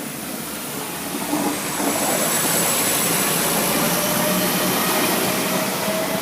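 Train passing over a level crossing: a steady rushing noise that grows louder over the first two seconds, with a faint engine whine slowly rising in pitch.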